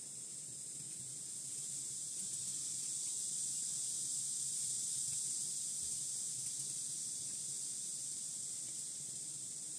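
Steady high-pitched background hiss with no other clear sound; the crochet hook and yarn are not audible above it.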